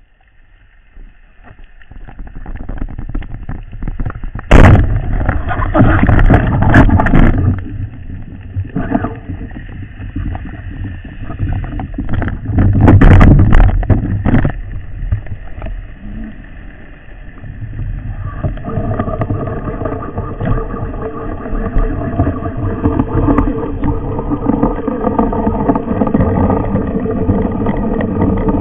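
Underwater sound of a speargun dive: a sharp crack about four and a half seconds in as the speargun fires, then bursts of rushing water noise from the diver's movements. From about two-thirds of the way through, a steady drone with several pitches comes in and holds.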